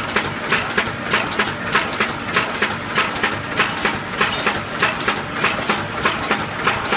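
Automatic wire mesh welding machine for chicken cages running, with a steady, even clatter of strokes about three times a second.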